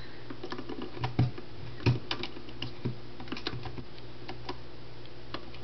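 Scattered plastic clicks and taps from a white electric can opener being handled, its detached lever piece being fitted back on. There are two louder knocks, about one and two seconds in.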